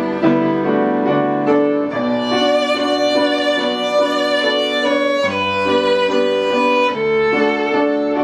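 Background music: a violin melody in held notes over a steady accompaniment with a bass line.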